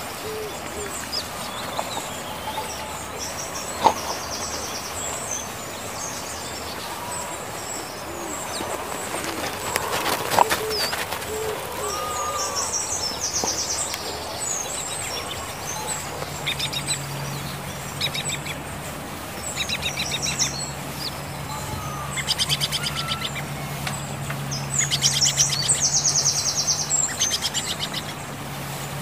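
Small birds chirping, with rapid high trills in the second half, over a low steady hum that comes in about halfway through. A couple of sharp clicks early on.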